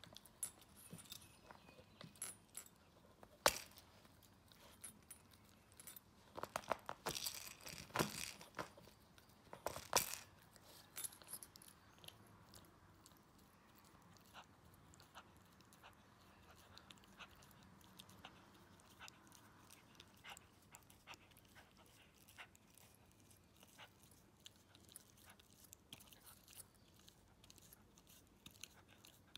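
A teething Maltese puppy chewing and biting a knit plush elephant toy: irregular soft crunching and sharp teeth clicks, in louder clusters during the first ten seconds or so, then fainter and sparser.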